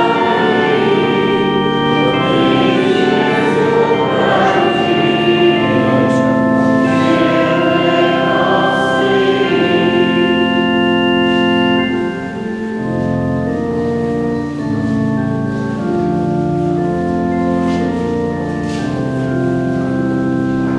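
Church organ accompanying a hymn sung by many voices; the singing ends about twelve seconds in and the organ plays on alone, a little quieter.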